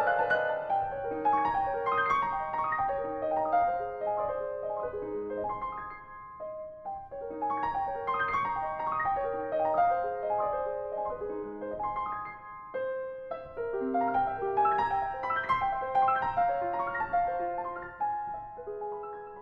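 Grand piano played in a fast classical passage: quick runs of notes, with brief drops in loudness about six and thirteen seconds in.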